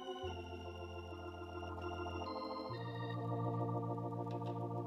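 Organ playing held chords, the chord changing about a quarter of a second in and again near three seconds in.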